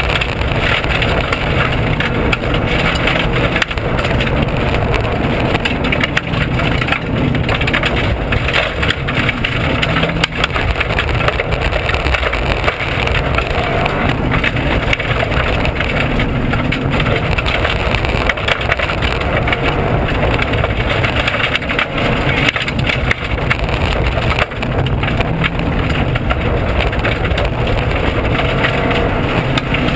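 Cabin noise inside a Subaru WRX rally car at speed on a gravel forest stage: the engine running hard and rising and falling in pitch, under constant road roar and a stream of knocks and rattles through the shell. The car is running with its rear suspension broken.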